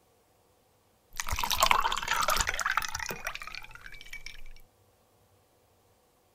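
Liquid poured from a jug into a glass, starting about a second in and stopping abruptly some three and a half seconds later.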